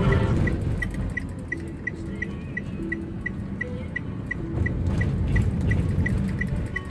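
Car interior: a steady low rumble of the car, with a short high tick repeating evenly about three times a second.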